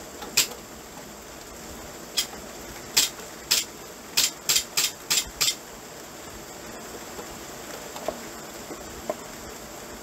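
Steady rain falling at night, with a run of about nine sharp taps on something hard during the first five and a half seconds, coming quickly one after another in the middle. Two faint short chirps follow near the end.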